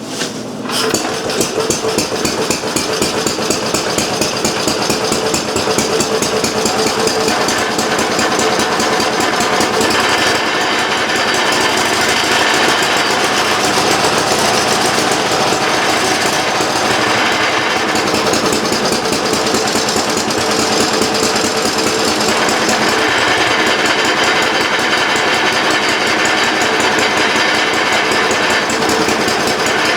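Briggs & Stratton Model Q single-cylinder engine starting about a second in, then running steadily with rapid, even firing and its cooling shroud off. It runs rich and not quite smooth, with a carburetor that cannot yet be adjusted properly.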